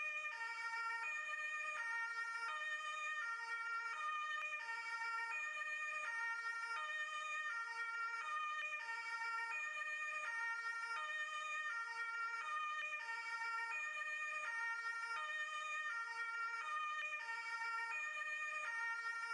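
Two-tone ambulance siren, alternating evenly between a lower and a higher note about every 0.7 seconds, each note held at a steady pitch.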